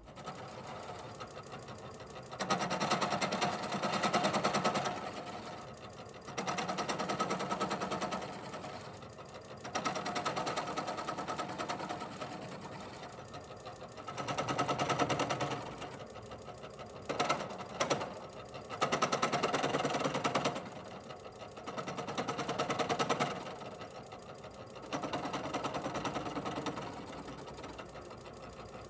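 Bridgeport milling machine's end mill cutting around the scalloped, drilled-out hole in a steel flange plate, taking off the leftover ridges. The cutting noise comes in about eight louder stretches of two to three seconds, with the spindle running more quietly between them.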